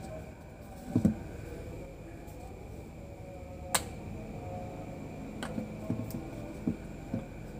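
A few light clicks and taps as an old Nokia-style charger pin is worked into the charging socket of a plastic aerator housing: a dull knock about a second in, one sharp click near the middle and several softer taps towards the end, over steady faint room noise.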